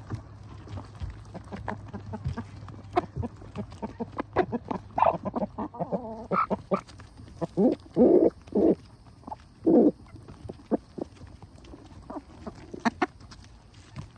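Chickens pecking fast at black soldier fly larvae on the ground, with many quick sharp pecks and several short, louder clucks in the middle.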